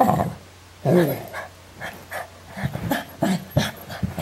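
Small long-haired dog vocalising in play: two longer sounds that bend in pitch at the start and about a second in, then a quick run of short sounds, about three a second, from about halfway through.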